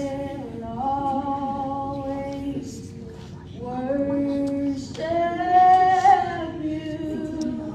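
A woman singing a slow worship song, holding long notes that step up and down in pitch.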